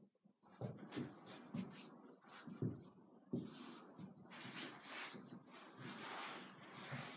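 Rustling and scraping of a child's clothes and body against a rolled-up rug and a wooden floor as he wriggles through the rug, with irregular soft bumps.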